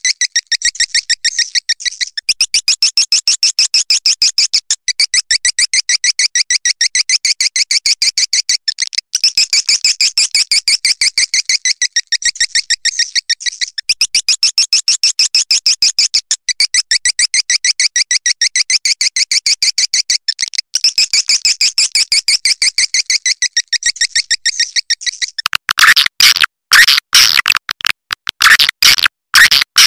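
Swiftlet lure call recording: a fast, unbroken train of high chirping twitters, with brief breaks every few seconds. About 25 seconds in it switches to a louder, choppier section of chirp bursts with short gaps between them.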